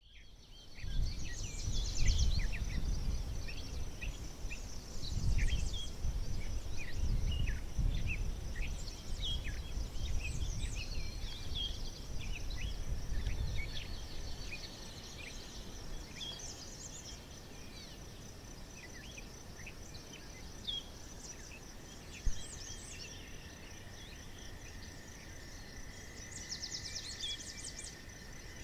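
Countryside ambience: many birds chirping and calling over a steady high insect drone, with a low rumble through the first half that fades out about fourteen seconds in.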